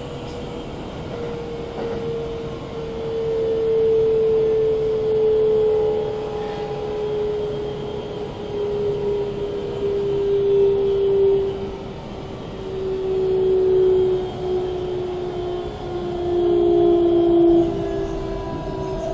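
Keikyu N1000-series electric train heard from inside the passenger car: a steady whine from its Siemens GTO traction equipment, sliding slowly down in pitch, over the running noise of wheels on rail. The whine swells louder several times.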